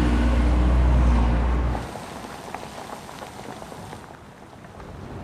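A car's engine rumbles low for about two seconds, then cuts off abruptly. Steady rain follows.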